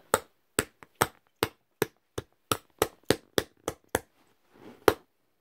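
A plastic fidget spinner being whacked with a blunt object to break it: about a dozen sharp knocks, two or three a second, with one last hit after a short pause near the end.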